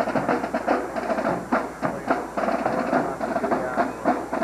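Drums playing a quick, rhythmic cadence, many sharp strikes over a steady band sound.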